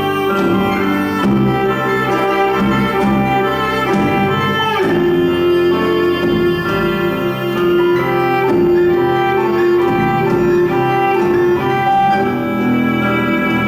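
Instrumental music led by bowed strings, cello-like, over sustained chords, with a downward slide into a long held note about five seconds in.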